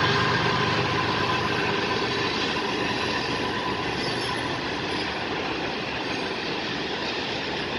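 Freight train's cars rolling past: a steady noise of steel wheels on the rails that eases slightly over the few seconds.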